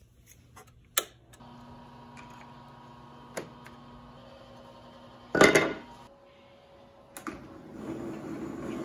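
A homemade CNC router being powered up and worked from its controller: sharp clicks, then a faint steady electrical hum, and a loud brief knock about halfway through. Near the end the machine starts moving with a rising, buzzing whir.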